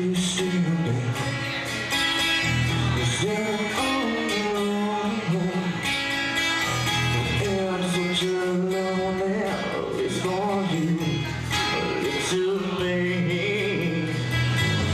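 Live band playing a song: strummed guitar and electric guitars, with a singing voice.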